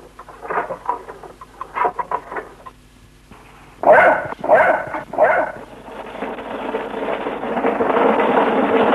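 A dog barking three times about four seconds in, after a few fainter short sounds. A steady noise then builds up and grows louder toward the end.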